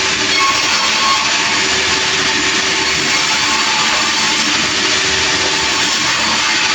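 Sawmill running steadily: a loud, continuous machine noise with faint steady hum underneath and no break.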